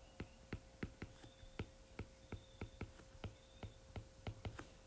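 Stylus tip tapping and clicking on an iPad's glass screen while handwriting words, faint short ticks at about four to five a second.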